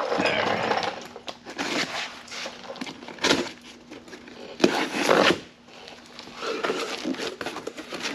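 A cardboard shipping box being opened and unpacked: irregular rustling, crinkling and scraping of cardboard and packing material, with a few louder bursts about three and five seconds in.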